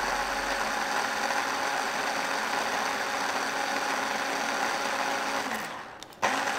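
Small electric food chopper blitzing pesto: its motor runs at a steady pitch while the herbs and oil are blended toward an emulsion. Near the end it winds down, stops for a moment and is pulsed on again.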